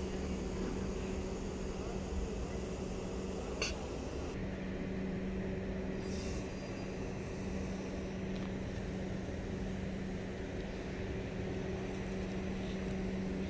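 Electric multiple-unit trains at a station platform: a steady electrical hum over a low rumble, with a single sharp click about three and a half seconds in. From about four seconds in, a London Overground Class 378 electric train moves slowly along the platform.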